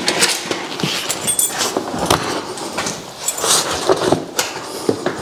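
Motorcycle seat being unlatched and lifted off the frame: irregular clicks, knocks and rattles of plastic and metal, with rustling as the seat is handled.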